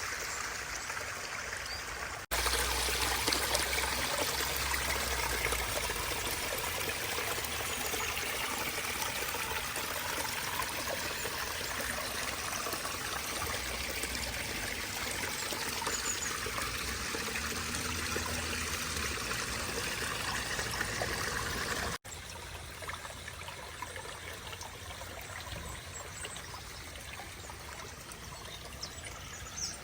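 Water running and trickling over the rocks of a pondless stream and waterfall, a steady rush that changes level abruptly at cuts about two seconds in and about 22 seconds in.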